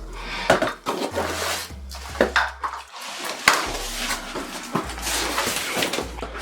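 Ring light parts and their packaging being handled during unboxing: irregular rustling and crinkling of a bag and box, with light knocks and clinks of parts being set down.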